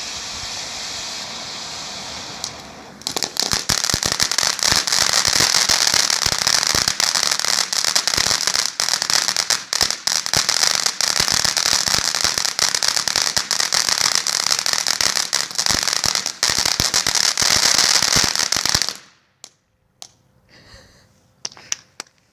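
Large consumer ground firework: a steady hiss for a few seconds, then a long run of dense, rapid crackling that stops suddenly. A few scattered pops follow.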